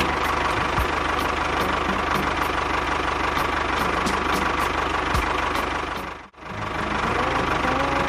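Tractor engine running with a steady, rapid knocking beat. It cuts out briefly about six seconds in, then picks up again with a rising rev.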